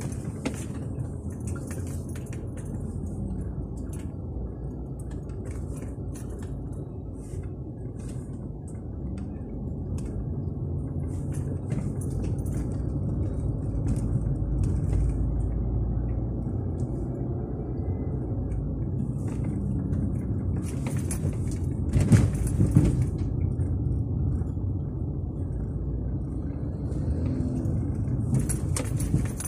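Inside a moving car: a steady low rumble of engine and tyre noise as it drives slowly along a city street, with a short louder rush about two-thirds of the way through.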